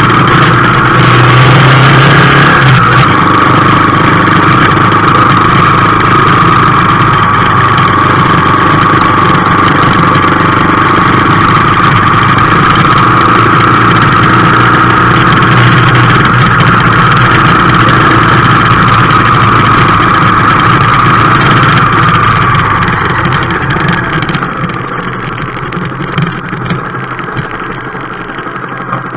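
Motorcycle engine running as the bike rides along rough village streets, loud with road and wind noise. About three-quarters of the way through it slows and the engine settles to a quieter idle as the bike stops.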